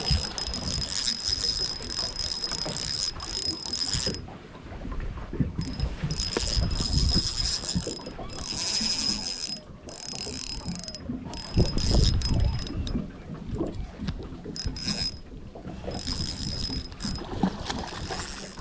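Spinning reel being cranked in stretches of a few seconds, its gears giving a steady high whir with fine ticking, as a hooked trout is wound in.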